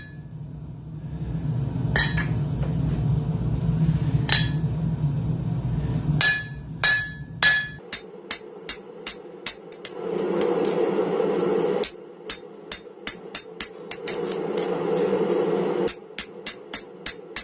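Blacksmith's hand hammer striking hot steel on an anvil while forging a hammer eye drift: sharp ringing blows, at first single ones a couple of seconds apart, then quick runs of about three a second. A steady rushing noise fills two short stretches between the runs, and a low drone underlies the first half.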